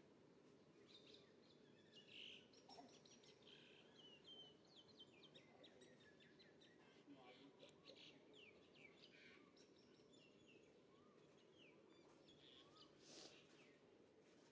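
Faint outdoor ambience: scattered short bird chirps and tweets over a low, steady background noise, with one brief sharper sound near the end.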